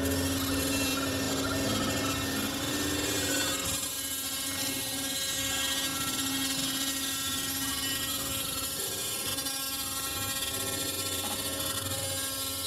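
The spindle of a four-axis CNC router runs at speed as its tool cuts into a block: a steady machine whine with several tones over a hiss of cutting. It eases slightly about four seconds in.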